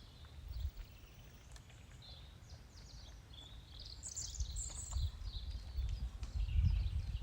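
Small birds chirping and twittering, with a low rumbling noise underneath that grows louder in the second half.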